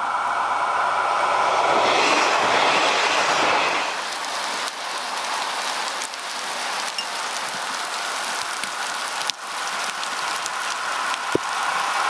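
KiHa 47 diesel railcar running past, wheels rumbling and clicking over the rail joints, loudest about two seconds in and fading after that. Near the end a level-crossing warning bell rings steadily.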